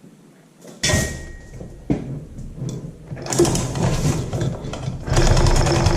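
Hand chain fall hoist being worked to lower a tractor cylinder head, its chain rattling and clicking rapidly through the hoist. The clatter starts suddenly about a second in and comes in two louder spells, the second near the end.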